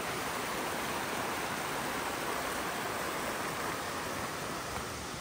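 Small mountain brook running steadily over rocks, a continuous rushing of water.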